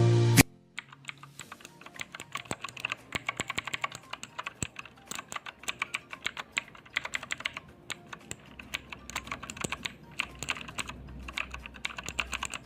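Typing on a Digital Alliance Meca Sport mechanical keyboard: rapid, uneven keystrokes clicking several times a second with short pauses. Background music cuts off just after the start.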